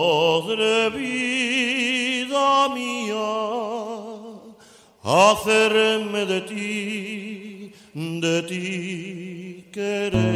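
Recorded havanera music: sung notes held with a wide vibrato. A swooping rise in pitch comes about five seconds in.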